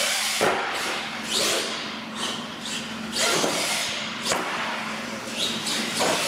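R/C monster truck running hard over ramps: its motor revs in short repeated bursts, with sharp knocks as the truck lands and tumbles on the concrete floor.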